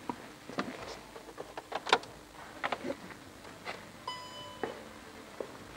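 Footsteps and scattered clicks and knocks as someone works at a car, the sharpest just under two seconds in, then one short electronic beep about four seconds in, the car's warning chime as its ignition is switched on.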